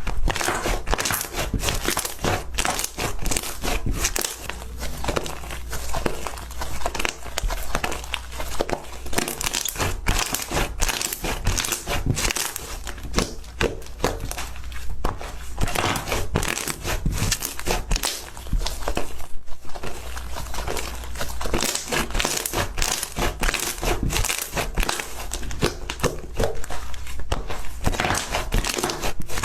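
Slime being pressed and squeezed by hand, giving a dense, continuous run of small crackles and pops.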